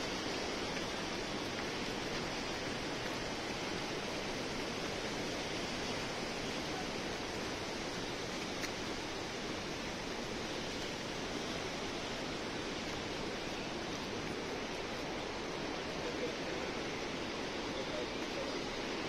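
Steady, even rush of running water with no breaks.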